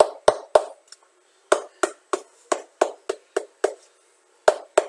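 Shoemaker's hammer striking the cupsole of a sneaker to press the contact-cemented sole firmly onto the upper: quick dull knocks about three a second, pausing briefly twice.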